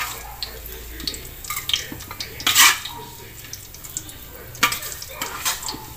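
Metal spatula scraping and clinking against a metal wok as fried garlic is scooped out into a bowl, in irregular strokes, the loudest about two and a half seconds in.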